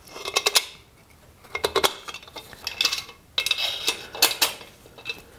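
Metal clinking and rattling in three short clusters of clicks: the chainsaw's muffler and its steel screws knocking together and against the cylinder as the screws are lined up with their holes.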